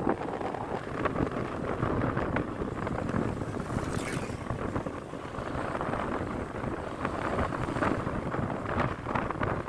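Wind buffeting the microphone on a moving Honda Click 125i scooter, a gusty rushing noise, with road and engine noise from the scooter underneath.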